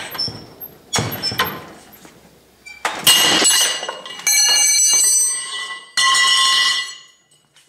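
A 1-inch forged steel open-end wrench snapping under heavy pull on a pipe cheater bar: a sharp crack about three seconds in as the jaw breaks off, then loud clattering and ringing of steel as the broken pieces and the pipe fall, with two further clatters.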